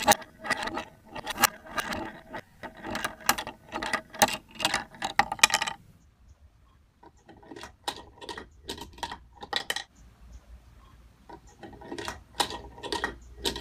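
Wooden ladder-flipping toy: the wooden figure tumbles down the ladder, clacking on each rung in runs of sharp clicks, about two or three a second, with short pauses between the runs.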